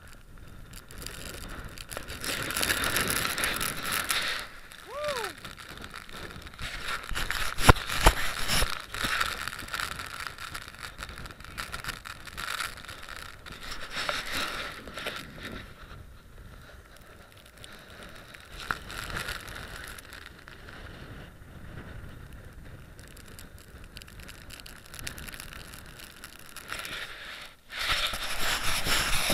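Strong gusty wind buffeting the camera microphone, rising and falling in loud surges, with a couple of sharp knocks about eight seconds in.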